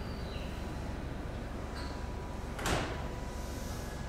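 Railway platform ambience: a steady low rumble with faint chirps, and one short knock about two and a half seconds in.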